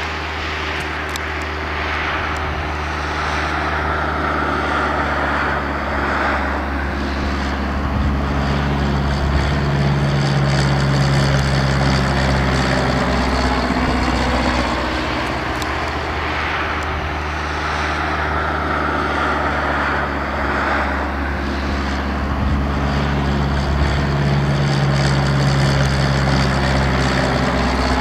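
Cessna light plane's propeller engine droning steadily overhead, swelling louder twice as it passes, with a slowly sweeping whoosh in the tone.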